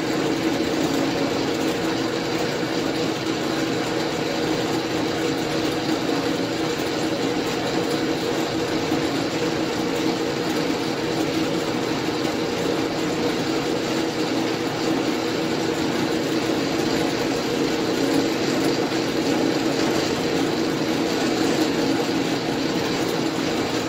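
Sheldon metal lathe running under power with its carriage feed engaged: the gear train, quick change gearbox and lead screw turning, a steady mechanical whir with a few held tones and no cut being taken.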